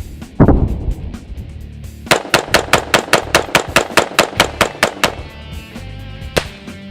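Baer Custom Police Special .223 semi-automatic rifle firing: one heavy shot about half a second in, then a fast string of about twenty sharp shots, some seven a second, for about three seconds. Background music plays under the shots.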